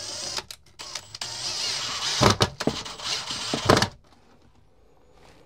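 Cordless drill driving screws into a wall: the motor runs in a couple of short bursts and then a longer run, with sharp knocks as the screw seats, and stops about four seconds in.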